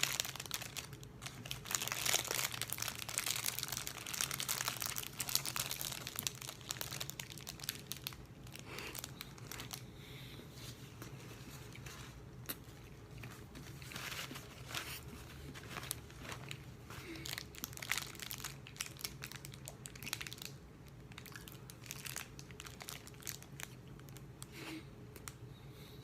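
Plastic wrapper of a packaged cornbread being crinkled and torn open. The crackling is dense for the first five or six seconds, then comes in scattered crinkles.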